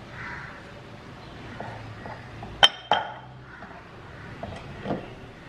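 Kitchen utensil clinking twice against a ceramic plate, a fraction of a second apart, each clink ringing briefly, followed by a softer knock near the end as food is served.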